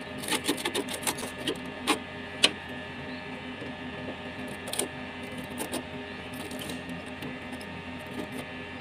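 Metal hand tools picking, scraping and snipping at a damaged radiator core's fins and old sealant. A quick run of sharp clicks and scrapes comes in the first couple of seconds, the loudest about two and a half seconds in, then sparser ticks, over a steady low hum.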